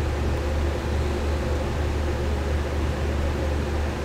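Steady low hum with an even hiss over it, machine background noise of the fan kind.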